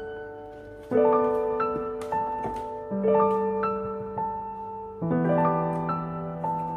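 Background piano music: slow, held chords, a new one struck about every two seconds.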